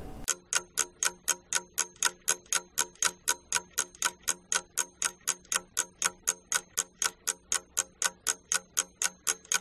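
Clock-ticking timer sound effect, an even tick about four to five times a second, counting off the time given to do a task.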